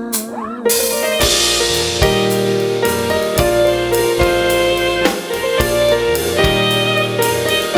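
Instrumental break of a Vietnamese pop song: a sung held note trails off in the first half-second, then the band comes in with a cymbal crash, sustained keyboard chords and a drum kit keeping a steady beat.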